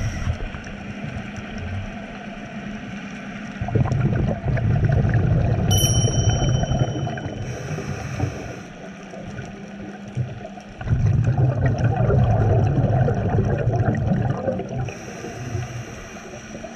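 Scuba diver breathing through a regulator underwater: two long exhalations of rumbling bubbles, each followed by the hiss of an inhalation. A brief high ding rings out about six seconds in.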